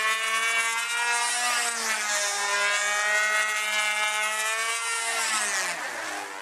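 Unmuffled Super Tigre .51 two-stroke glow engine of an RC model biplane running steadily at a high pitch, its muffler having fallen off in flight. The pitch dips briefly about two seconds in and falls away near the end.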